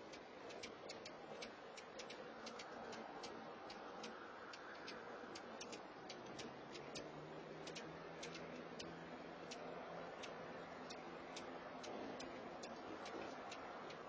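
Faint, irregular sharp ticking, about three ticks a second, over a steady low hiss, with a faint low hum joining about halfway through.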